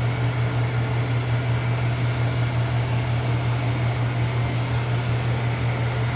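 ILIFE X5 robot vacuum running in its edge-cleaning mode, its suction motor and brushes giving a steady, unchanging hum with a strong low drone.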